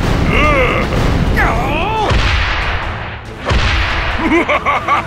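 Edited cartoon sound effects over a deep rumble: squeaky sliding tones, then a rushing whoosh that fades away, a sudden blast about three and a half seconds in, and a run of short chirpy squeaks near the end.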